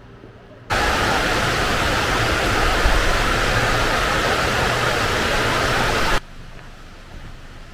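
Waterfall rushing: a loud, even noise of falling water that starts abruptly just under a second in and stops abruptly about six seconds in.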